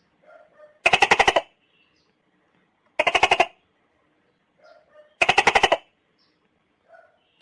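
Tokay gecko giving three bursts of rapid clicking chatter, each about half a second of fast clicks, about two seconds apart, with faint short chirps between.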